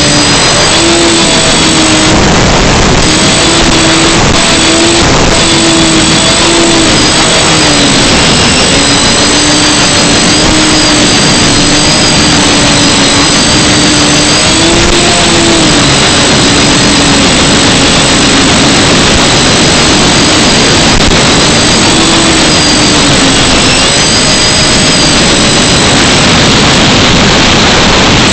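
FPV drone's motors and propellers whining over a loud rushing noise, the pitch drifting up and down with throttle.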